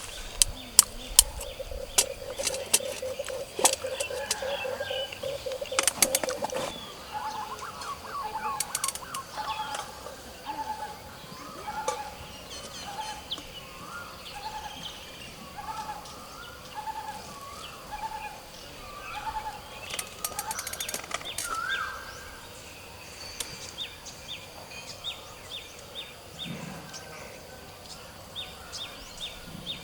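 Several sharp clicks and knocks over a steady hum in the first few seconds, then a bird calling a short note over and over, about once a second, with high chirps near the end.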